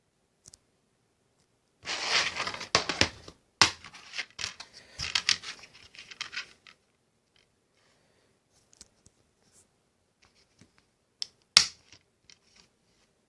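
Plastic wrapping being torn and peeled off a DVD case: several seconds of tearing and crinkling. Then light scattered handling clicks, with one sharp click near the end.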